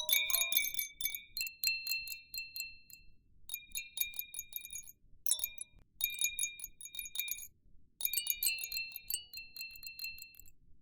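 Baby chime toy jingling: clusters of rapid small metallic strikes with bright ringing tones, in bursts of a second or two separated by brief pauses.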